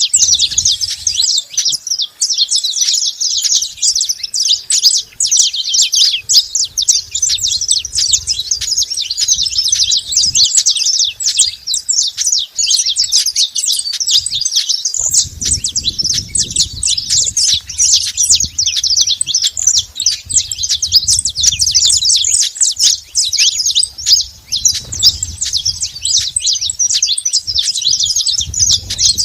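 Saffron finches chirping and singing nonstop, a dense stream of quick high notes from several birds at once.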